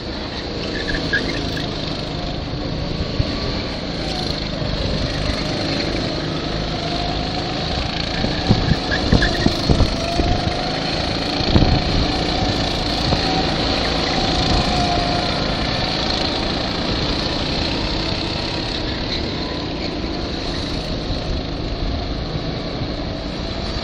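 Go-kart engines running on the track, their pitch rising and falling as the karts accelerate and brake through the corners. There are a few louder low gusts around the middle.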